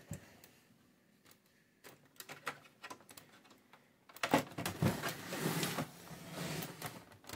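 Handling noises from an opened UPS case being stood upright and its battery cables moved: scattered light clicks and knocks, then a couple of louder knocks about four and a half seconds in, followed by rubbing and scraping.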